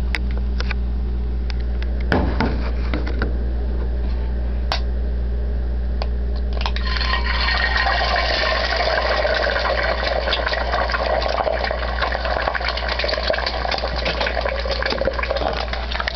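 A few sharp clicks and knocks, then, about seven seconds in, a loud crackling sizzle sets in and keeps going: an egg frying in hot olive oil in a cast-iron skillet. A steady low hum runs underneath.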